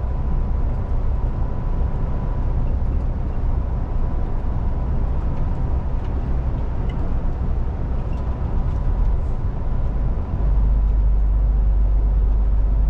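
MAN TGX semi truck on the move: steady engine and road rumble, heaviest in the bass, with a thin steady whine above it. About ten seconds in the deep rumble gets louder and stays up.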